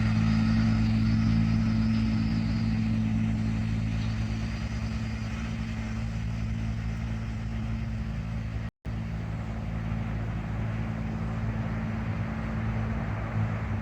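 An engine running at a steady speed, a constant low hum with a layer of noise above it. It cuts out for an instant about nine seconds in.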